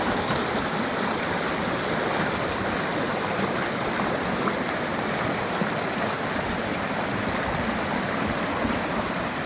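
Mountain river rushing steadily over rocks: a constant, full water noise with no change.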